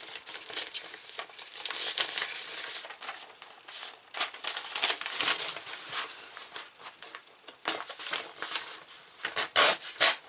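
A sheet of paper being handled: irregular crinkling and rustling, with the loudest crackles near the end.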